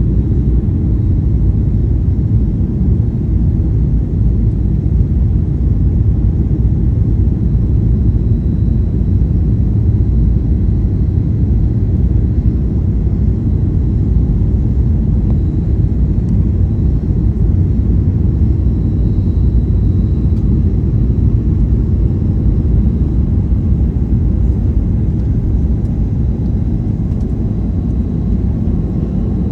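Steady low rumble of engine and airflow noise heard inside a Boeing 737 cabin in flight on approach, with a faint steady high whine.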